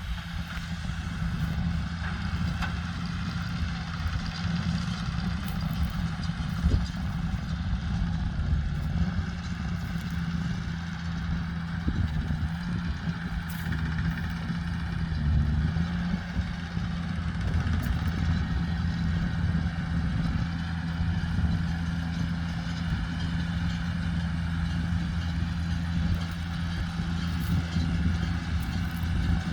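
JCB Fastrac 2170 tractor engine running steadily while driving a McHale Fusion 2 combined baler-wrapper baling rice straw, with a constant low hum and a brief wobble in pitch about halfway through.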